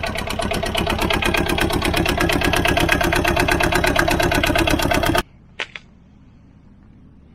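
The Aixam Mega Multitruck's small diesel engine idling with a fast, even clatter. It cuts off suddenly about five seconds in, followed by two short clicks over a faint low hum.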